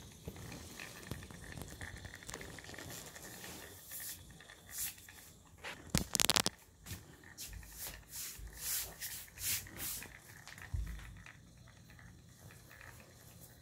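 Small electric gear motor driving a handmade wooden toy locomotive, its wooden gears and wheels rattling and scraping as it runs along a wooden track. A louder burst of noise comes about six seconds in.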